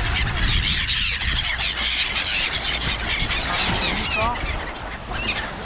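A flock of birds calling in a dense chorus of high squealing cries over the steady wash of the sea.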